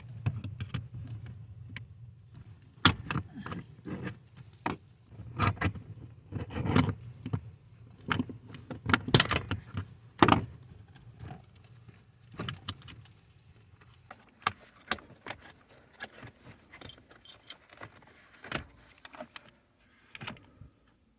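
Irregular clicks, taps and small rattles of hands working plastic clips and a control cable loose behind a car dashboard, busiest in the first half and sparser later. A low steady hum runs under the first half.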